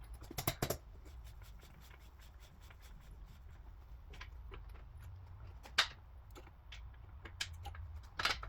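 Light clicks and taps of metal engine parts and tools being handled, with louder knocks about half a second in, near six seconds and at the end, over a low steady hum.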